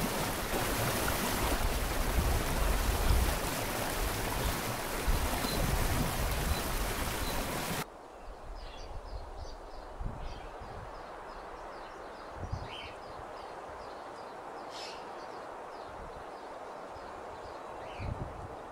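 Waterfall cascading over rock ledges: a loud, steady rush of water that cuts off abruptly about eight seconds in. It gives way to a quieter outdoor bed with many short, high bird chirps and a few low gusts of wind.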